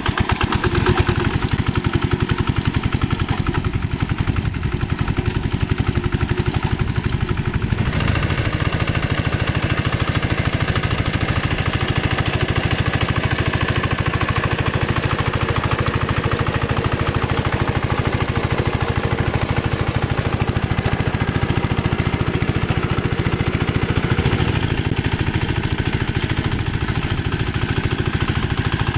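Single-cylinder diesel engine of a two-wheel hand tractor running steadily under load, with a fast, even firing beat, as the tractor drags its cage wheels and rake through flooded paddy mud. The sound changes abruptly about eight seconds in.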